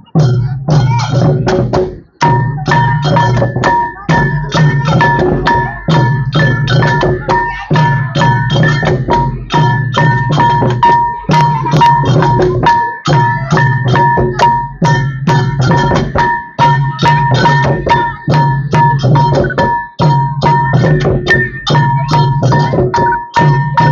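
Music for a Khmer Sa-dam long-drum dance: fast, steady drum and percussion strikes with a brief break about two seconds in, after which a held high note runs over the beat.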